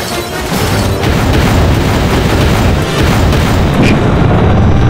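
Film sound-effect explosions with a heavy, deep rumble that swells about a second in and keeps going, mixed with an orchestral score.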